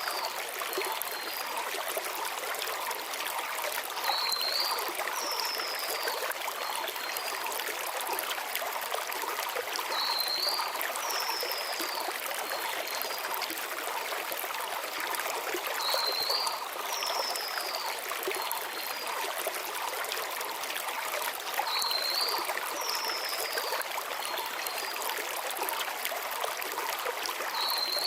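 Small mountain river flowing steadily over stones, an even rushing babble. A small forest bird calls above it about every six seconds, each time a short upturned note followed by a high whistled note that slurs downward.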